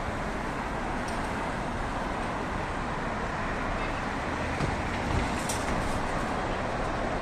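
Steady city road traffic: cars driving past on a multi-lane street, with a brief high hiss a little over five seconds in.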